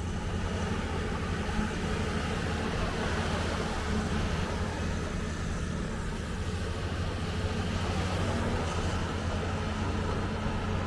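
A heavy vehicle's engine running steadily, a constant low drone.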